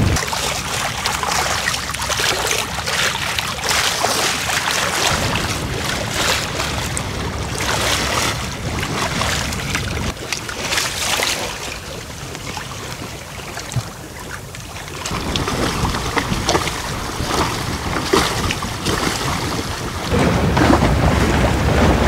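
Water rushing and splashing along the hull of a sailing yacht under way, with wind buffeting the microphone as a low rumble near the start and again near the end. The water goes quieter for a few seconds in the middle.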